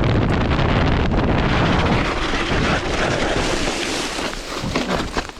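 Wind buffeting the microphone: a heavy low rumble that eases about two seconds in, leaving a hiss that fades toward the end.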